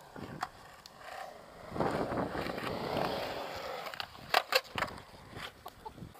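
Skateboard wheels rolling for a couple of seconds, then a quick run of sharp clacks from the board about four seconds in.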